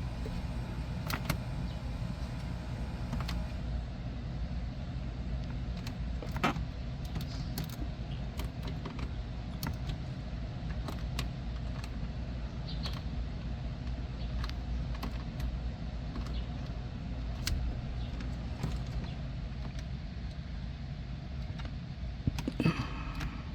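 Scattered clicks of car radio buttons pressed one at a time, entering the anti-theft unlock code on a 2007 Ford Escape's stereo, over a steady low hum.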